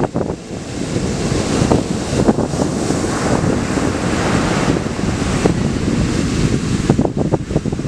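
Sea surf breaking and washing up a sand beach, with wind buffeting the microphone. The wash builds about a second in and stays strong.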